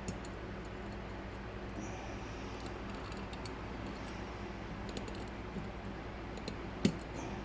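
Faint, scattered metallic clicks and scraping of a wire pick working the levers inside a large old lever lock, over a steady low hum. One sharper click comes near the end.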